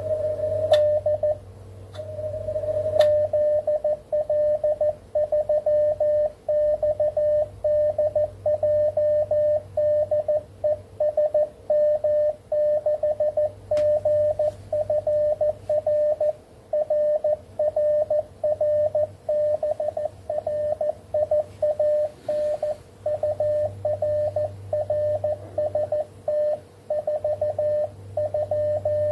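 Morse code (CW) on 20 metres from an Icom IC-7300 transceiver: a single steady tone keyed on and off in dots and dashes, sent almost without pause, over a low steady hum. Two sharp clicks come in the first three seconds.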